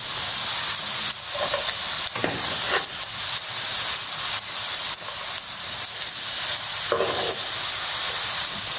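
Beef pieces sizzling steadily in hot sesame oil in a frying pan, fried well and done. A metal spoon scrapes against the pan a few times as the meat is stirred and scooped out.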